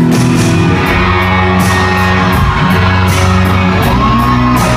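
Live country-rock band playing a short passage between sung lines, with a steady beat.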